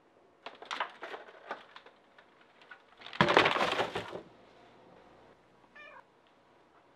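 A run of sharp plastic clicks and clatter, then a loud clattering crash at a plastic swing-top trash can about three seconds in. Near the end, a house cat gives one short meow.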